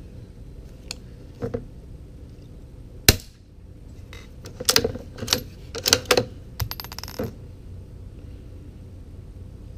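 A single sharp suppressed shot from a Savage MKII FV-SR .22LR bolt-action rifle with a home-built Form 1 suppressor, firing a subsonic Gemtech Silencer Subsonic round, about three seconds in. About a second and a half later comes a run of metallic clicks and clatter lasting about three seconds as the bolt is worked to eject the case and chamber the next round.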